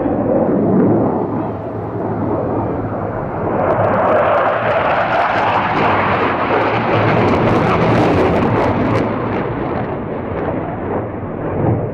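A Tornado GR4 jet's twin RB199 turbofan engines. The dense jet noise grows louder and brighter from about three and a half seconds in as the aircraft passes, then fades toward the end.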